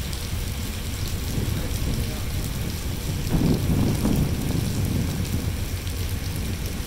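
Steady rain falling on a station platform and tracks, over a constant low rumble, with a brief louder swell of low sound about three and a half seconds in.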